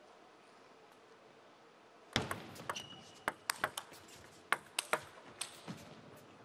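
Table tennis rally: the plastic ball clicks sharply off the bats and table in quick, uneven succession, starting about two seconds in after a quiet hall.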